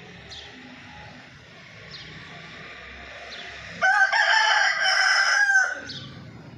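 A rooster crows once, a single loud call lasting about two seconds that starts just past the middle and cuts off sharply.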